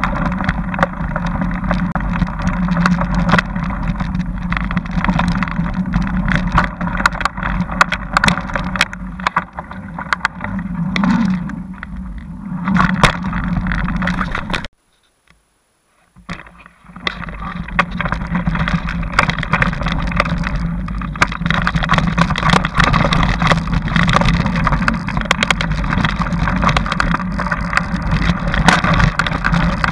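Ride noise from a camera mounted on a mountain bike on a dirt trail: a steady rumble of wind and tyres with frequent rattles and knocks from bumps. The sound drops out to silence for about two seconds midway, then resumes.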